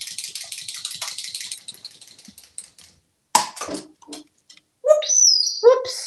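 A fast, dense clicking rattle that fades out over the first few seconds, then African grey parrot calls: a short loud squawk about three seconds in and a high whistle with lower tones near the end.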